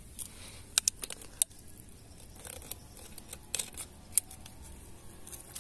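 Sharp, irregular clicks and crackles of a thin plastic soda bottle being squeezed in the hand and its screw cap twisted.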